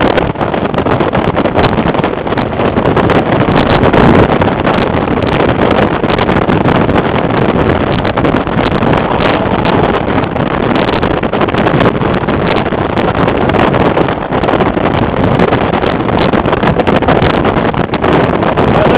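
Car driving at road speed: steady engine, tyre and road noise, with wind buffeting the microphone.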